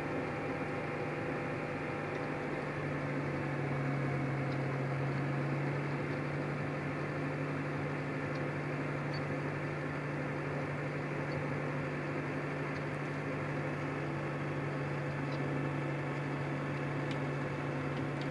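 Case IH Maxxum 130 tractor engine running at a steady speed, heard from inside the cab as an even, unbroken drone.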